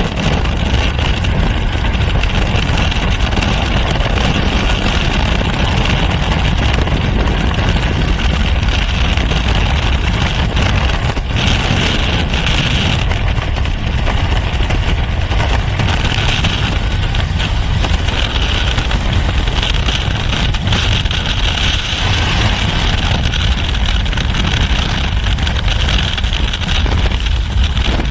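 Freefall wind buffeting the camera's microphone: a loud, steady rush, deepest at the bottom, with a higher hiss that swells now and then.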